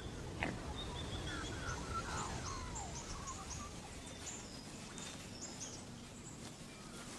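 Natural bush ambience: wild birds calling, with scattered short high chirps and a run of falling whistled notes in the first few seconds, over a steady low background hiss.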